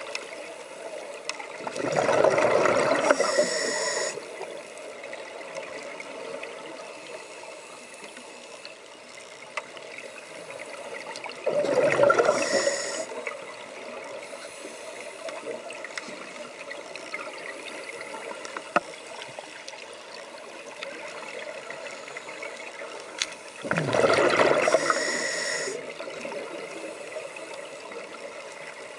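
Scuba regulator exhaust: a diver exhaling three times, each breath a bubbling gush of about two seconds, with roughly ten seconds between them. Between breaths there is a faint steady underwater hiss with scattered small clicks.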